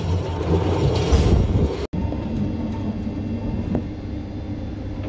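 Centovalli railway train running along the track, heard from inside the carriage as a steady rumble. There is a sudden brief dropout about two seconds in, after which the rumble goes on slightly quieter with a faint steady whine.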